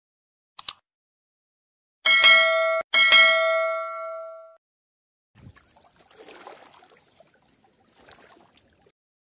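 Subscribe-button sound effects: a quick double mouse click, then two bright notification-bell dings that ring out and fade over about a second and a half. Faint outdoor hiss and rustling follow.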